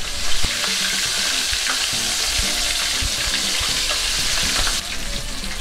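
Hot oil sizzling steadily around flour-coated chicken drumsticks shallow-frying in a pan, with the oil brought to about 180 °C. The sizzle is dense and even, then drops off somewhat about five seconds in.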